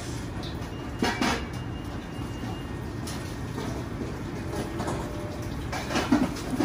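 Garlic cloves being peeled by hand with a small paring knife over a stainless steel bowl: a few short bursts of papery skins rustling and the blade scraping, over a steady low kitchen rumble.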